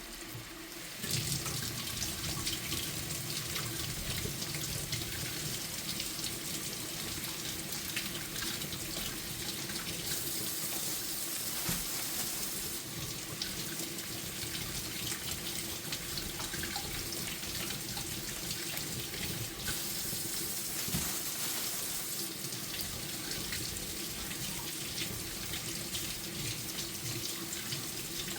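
Kitchen tap running into the sink as potatoes are washed under the stream. The water comes on about a second in and hisses louder twice along the way.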